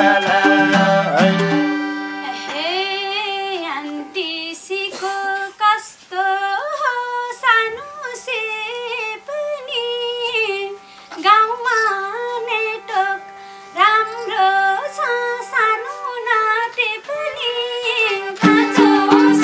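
Nepali live dohori folk music. After about two seconds the band drops out, leaving a lone ornamented melody over a faint held drone note, and the full band with harmonium comes back in near the end.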